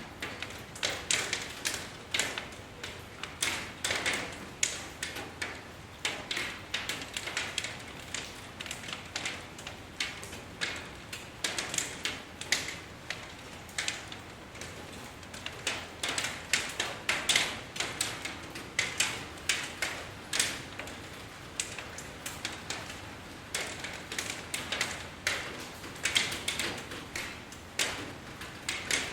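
Rain falling as individual drops tapping on a hard surface: a dense, irregular run of quick, crisp taps over a faint steady hiss.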